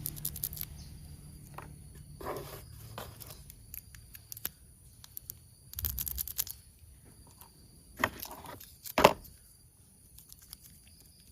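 Hands handling toy train parts and their packaging: scattered rustling, scraping and light plastic clicks, with two sharper knocks near the end, the second the loudest.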